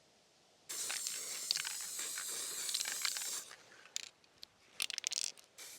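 Aerosol can of black spray paint hissing in one steady spray of nearly three seconds, starting about a second in, followed by a few light clicks and taps.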